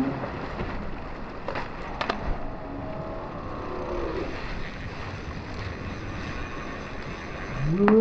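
Steady rushing wind-and-water noise aboard a small offshore fishing boat, with two sharp clicks about a second and a half and two seconds in.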